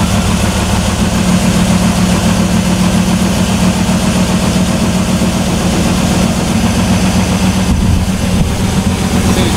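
1994 Camaro Z28's LT1 5.7-litre V8 idling steadily, with its headers still loose and leaking exhaust.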